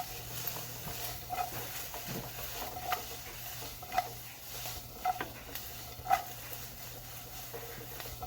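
Onions sautéing in an oiled frying pan: a faint sizzle under repeated clinks of a utensil stirring and knocking against the pan, roughly one a second.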